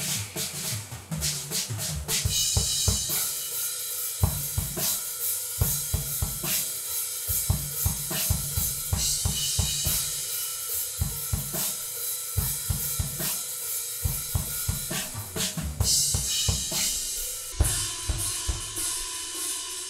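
Yamaha drum kit being played: kick drum, snare, hi-hat and cymbals in a steady, repeating beat.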